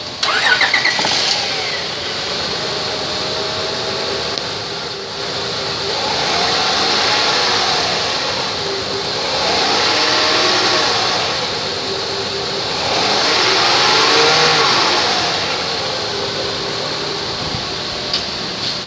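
Honda Pilot's 3.5-litre VTEC V6 engine starting just after the beginning, then running at idle. It is revved three times, each rev rising and falling back to idle.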